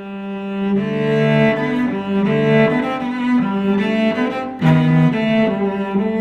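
Instrumental music of held, overlapping pitched notes in a slow melody, changing about every half second, with no drums.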